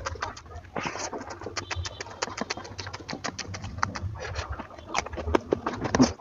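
Close-miked eating of oily mutton fat curry with rice: wet chewing and mouth smacking, a fast run of sticky clicks and crackles.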